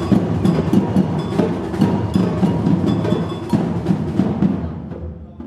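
A percussion group drumming together, with dense, steady strokes, tailing off and dying away in the last second or so.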